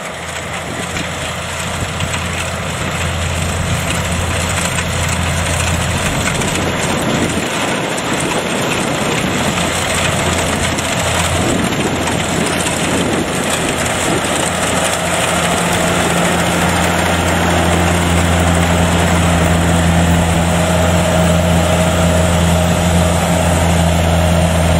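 Kubota combine harvester running under load as it cuts rice: a steady diesel engine drone with the clatter of its cutting and threshing works, growing slowly louder.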